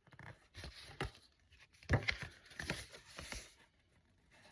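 Hands handling unboxed cassette tapes and their packaging up close: irregular clicks, taps and rustling, loudest about two seconds in and again around three seconds.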